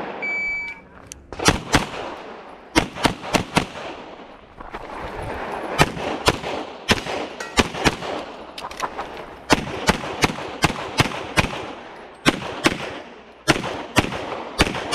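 Electronic shot timer gives its single start beep, then a pistol fires a long string of shots, mostly in quick pairs, in groups separated by short pauses.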